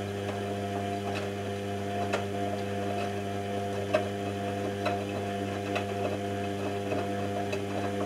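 Zanussi Jet System front-loading washing machine in its wash cycle, the drum turning while the jet system recirculates the water, with a steady hum and light ticks about once a second.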